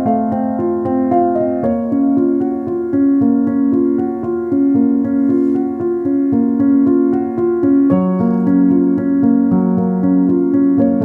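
Background music played on a keyboard with a piano sound: held notes and chords that change every few seconds.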